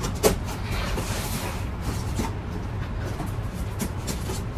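Scissor blade slitting the packing tape along a cardboard box's seam: a short click near the start, then a brief scraping rip about a second in, over a steady low background hum.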